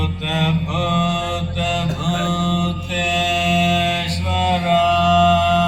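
Shiva devotional chant over music: long, held sung notes over a steady low drone.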